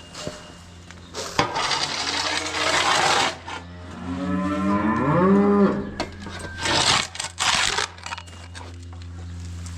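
A cow mooing once, a long call about four seconds in whose pitch bends and falls away, amid bursts of rustling or scraping noise and a steady low hum.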